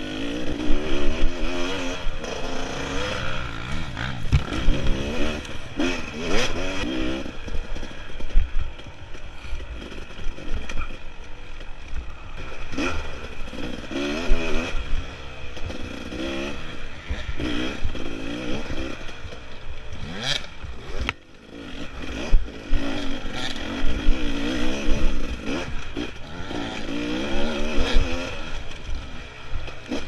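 Dirt bike engine revving up and down over and over as the rider works the throttle through the trail, with knocks and rattles from the bike over rough ground. The throttle closes briefly about two-thirds of the way through.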